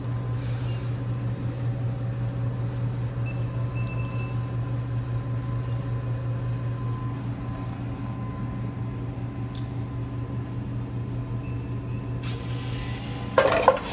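Single-serve pod coffee maker brewing: a steady low hum, then about twelve seconds in a loud hiss with a sputtering burst near the end as it finishes.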